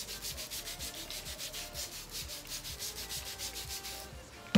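Handheld trigger spray bottle misting a dog's coat: a quick, regular run of short spray hisses, several a second, that stops about four seconds in.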